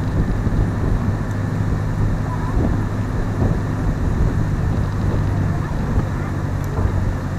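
River excursion boat's engine running with a steady low hum, over a haze of water and wind noise as the boat cruises.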